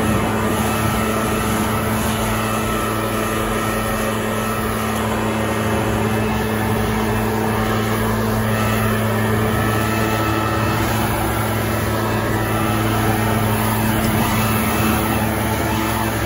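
Leaf blower running steadily at full throttle, its air blast sweeping acorns and leaves across a lawn.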